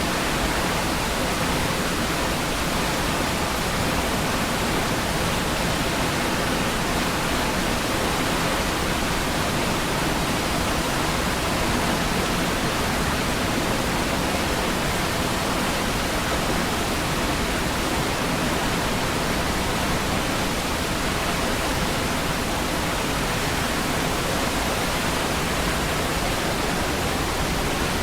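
Niagara Falls: a steady, unbroken rush of falling water, like white noise.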